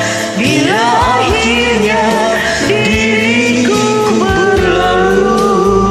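Karaoke of an Indonesian pop ballad: a voice holds and bends long sung notes over the backing track.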